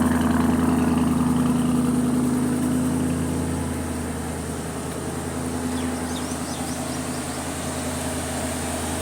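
Lamborghini Urus twin-turbo V8 idling steadily, growing a little quieter about three to four seconds in.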